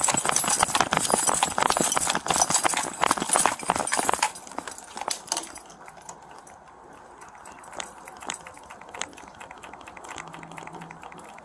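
Running footsteps on pavement, with gear and clothing jostling against a chest-worn body camera, fast and loud for about the first four seconds. Then they stop, leaving a faint background with a few scattered small clicks and knocks.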